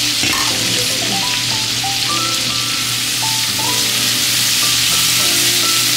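Shrimp and garlic frying in oil in a skillet: a steady sizzle, with soft background music beneath it.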